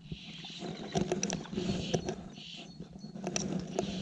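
Fly reel ratchet rasping in short bursts, several times, with scattered small clicks of tackle handling, while a hooked trout is played on a bent fly rod.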